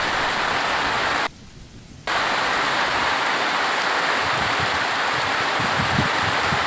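Steady heavy rain, a dense even hiss, which cuts out abruptly just over a second in and comes back under a second later.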